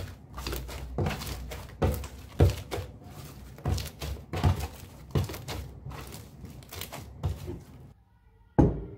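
Blue fluffy slime squished and stretched by hand: a run of irregular wet squelches and small pops. A single sharp knock near the end.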